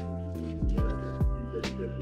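Background music with a steady beat: a deep kick drum under held chords and sharp hi-hat ticks.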